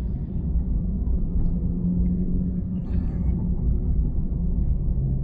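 Car cabin rumble from the road and engine while driving: a steady low drone whose engine hum drops lower near the end. A brief hiss comes about three seconds in.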